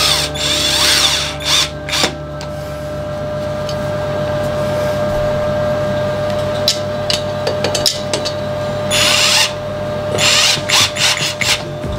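12V cordless impact drill driving screws into a wall in short runs, the motor's pitch rising and falling with the trigger. One run comes at the start and two more near the end, with a few clicks in between.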